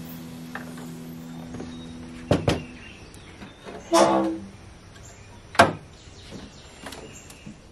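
Clicks and clanks of parts being handled under a van's raised hood: two quick clicks, a ringing metallic clank about four seconds in, and a sharp knock, the loudest sound, a moment later. Faint held tones of background music stop after about two seconds.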